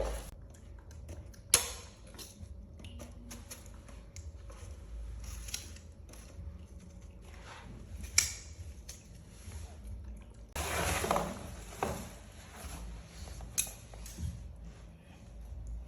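Scattered sharp clicks and taps of small objects being handled, with a longer rustling scrape about eleven seconds in.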